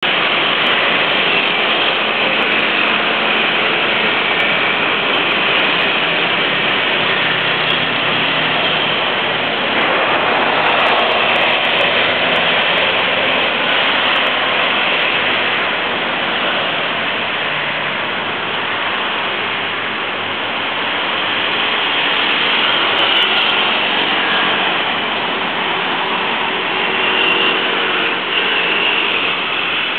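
Steady, dense city street traffic: cars, scooters and a bus passing on a multi-lane road, with engine hum under the rush of tyres. Heard through a compact camera's built-in microphone, so it sounds dull, with the top end cut off.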